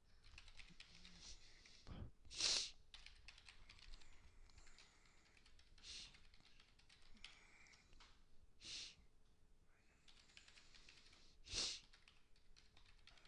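Faint computer keyboard typing, scattered key clicks with pauses, while a web form is filled in. Four short, louder hissing sounds come at intervals of about three seconds.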